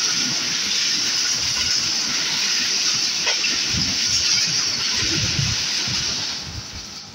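Loud steady rush of wheels and air as an express train passes close alongside on the next track, dying away about six and a half seconds in.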